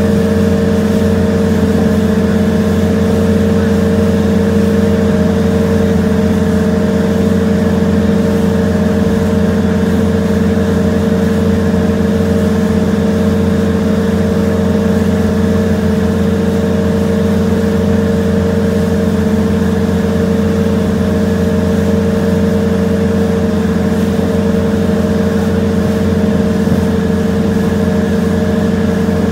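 Twin 454 big-block V8 inboard engines of a 33,000-pound Viking yacht running steadily at about 20 knots, a constant drone under load, with the wash of the churning wake behind the boat.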